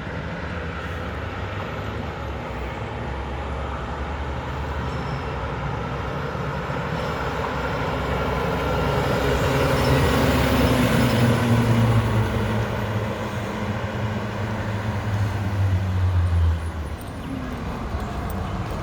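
Diesel engine of a Mack front-loader garbage truck running, growing louder to a peak about ten to twelve seconds in, with its low rumble dropping off suddenly near the end.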